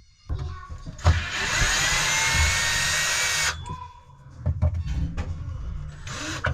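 Power drill running on screws: one run of about two and a half seconds with a slightly rising whine, a few knocks after it, then a short burst near the end.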